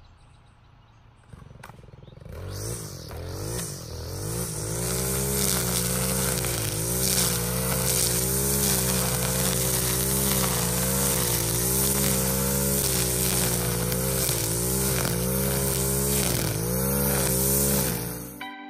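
Two-stroke gas string trimmer started about a second in, catching and building up over the next few seconds, then running at high speed while cutting tall grass, its pitch dipping and recovering again and again as the line bites. It cuts off abruptly at the very end.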